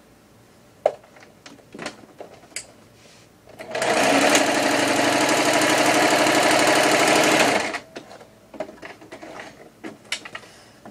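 Singer electric sewing machine stitching a seam through fabric, running at a steady speed for about four seconds and then stopping abruptly. Before it starts there are small clicks of fabric and machine being handled, one sharp click about a second in.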